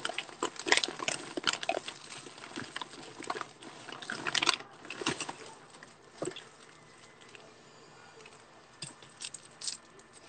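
Irregular clicks and crackles close to the microphone, dense for the first five seconds or so, then sparse and quieter.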